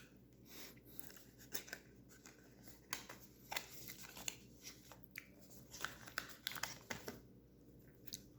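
Speed cube packaging being opened and handled by hand: faint, scattered rustles and small clicks of the box and wrapping.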